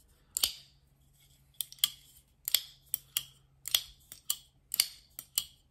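Kizer Brat button-lock folding knife with a G10 integral handle and 154CM blade, flicked open and dropped shut over and over: about a dozen sharp clicks, often in quick pairs, as the blade snaps out and locks, then clicks closed. The opening snap is the sign of a very snappy detent.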